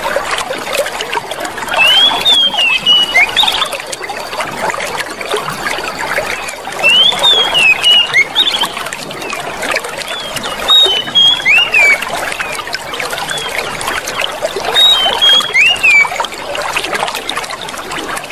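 Clear water running and trickling without a break. Clusters of short, high, gliding notes cut through it about every four seconds.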